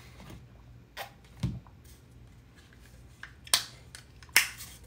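A few scattered clicks and a dull knock as an insulated water bottle's plastic lid is handled and snapped shut after a drink, the two sharpest clicks near the end.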